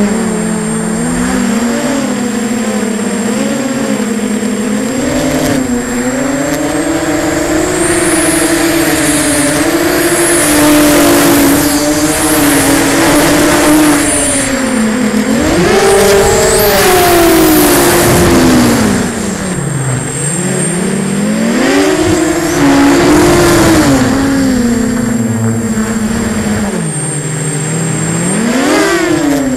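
Emax 2204 brushless motors spinning 6045 props on an FPV250 quadcopter in flight, recorded on the craft itself. The pitch of the whine rises and falls with the throttle, dropping twice in the second half and sweeping sharply upward near the end.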